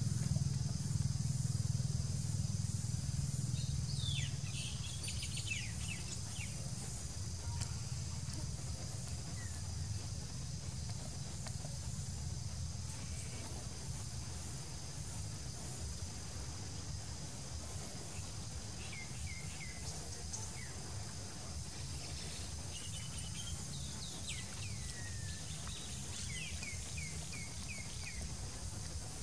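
Outdoor ambience: a steady low rumble under a steady high hiss. Clusters of short, high, falling chirps come about four to seven seconds in and again through the last ten seconds.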